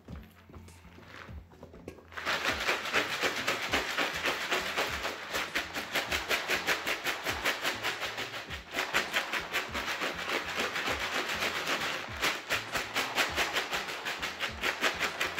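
Hardwood pellet cat litter rattling in a plastic sifting litter pan as the stacked trays are shaken back and forth, sifting the used, powdered sawdust through the grate. A fast, even rattle like a shaker starts about two seconds in.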